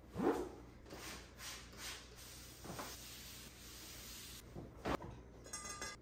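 Table cleaning: a few short hissing spritzes from a trigger spray bottle and cloth rustling, then a glass bowl set down on the table with a light clink near the end.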